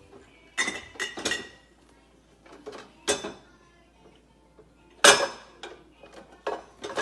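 Dishes and cutlery clinking and clattering as they are taken out of a dishwasher and handled, in several bursts; the loudest is a sharp clatter about five seconds in.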